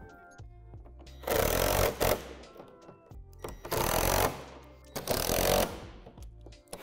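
Cordless power driver driving bolts through plastic playset wall panels, in three short runs of about half a second each with a fourth starting at the end. Background music plays underneath.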